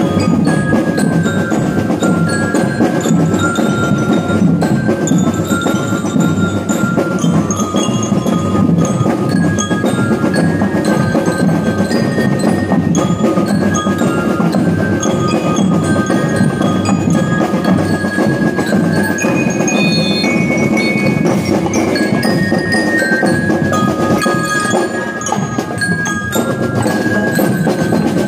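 Marching drum and lyre corps playing: bell lyres ring out the melody over a continuous beat of marching drums.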